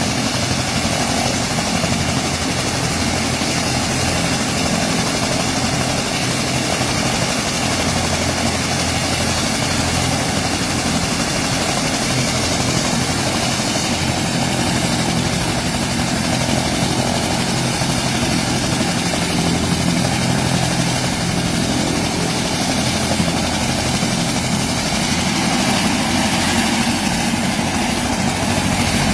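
Helicopter engine and rotor running steadily, a constant noise with a low hum that does not change.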